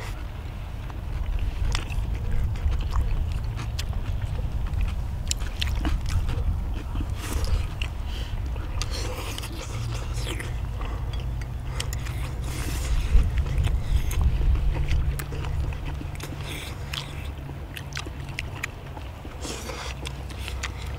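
Several people eating: chewing, with short clicks and scrapes of chopsticks against bowls and the cast-iron griddle lid, over a steady low rumble.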